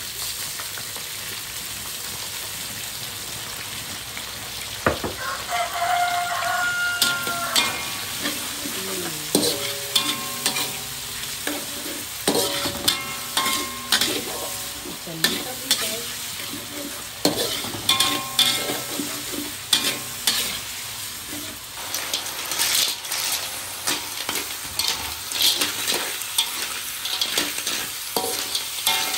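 Sauce-coated shallots, garlic and lemongrass sizzling in a hot metal wok, with a metal spatula scraping and knocking against the wok as it stirs. The stirring strokes start about five seconds in and go on in quick, uneven clatters.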